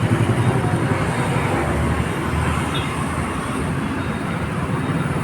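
Steady road traffic noise, with vehicle engines running and a continuous low rumble.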